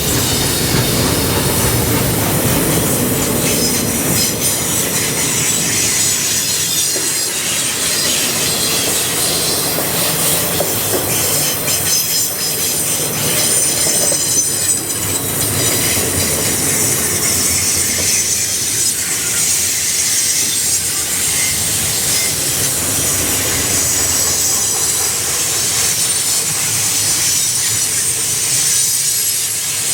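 Freight cars of a long CN freight train rolling past on a curve, steel wheels squealing against the rails in steady high-pitched tones over the rumble of the train.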